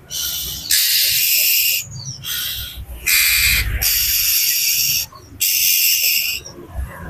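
Agitated oriental magpie-robin giving a series of harsh, rasping calls, each lasting up to about a second with short breaks between them.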